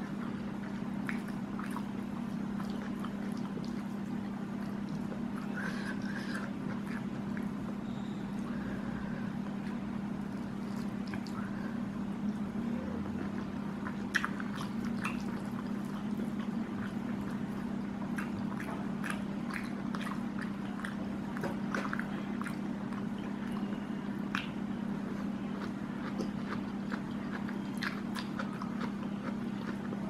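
Close-up chewing and mouth sounds of someone eating squid and rice by hand, with scattered short clicks and smacks, over a steady low hum.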